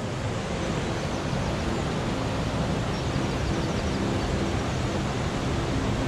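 Steady rushing of a river over rocky rapids and a low waterfall, an even noise with no breaks.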